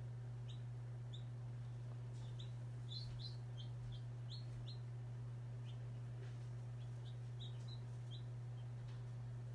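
Baby chicks peeping in an incubator: a string of short, high cheeps, each a quick downward slide, coming irregularly, over a steady low hum.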